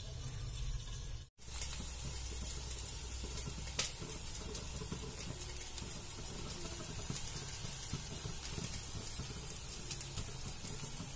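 Stuffed bitter gourds frying gently in oil in a pan on a low flame, a steady soft sizzle. The sound breaks off for an instant about a second in.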